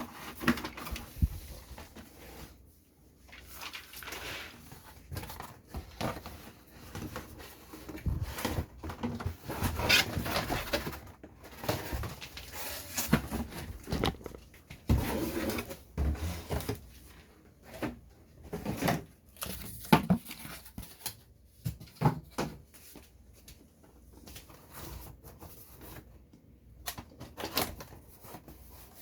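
Irregular handling noises: clicks, knocks and rustles as a plastic toy model and its packaging are handled.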